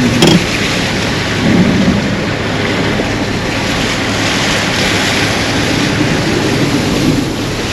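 Floodwater rushing in a swollen creek: a steady, loud roar of water, with wind buffeting the microphone in a few gusts.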